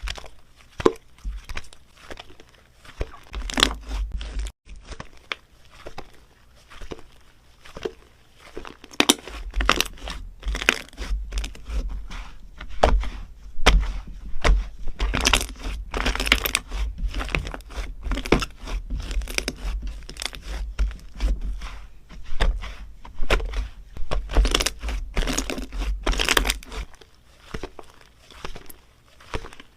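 Slime mixed with modeling clay being squished and kneaded by hand, giving dense, irregular sticky crackles and crunching pops with low handling thumps.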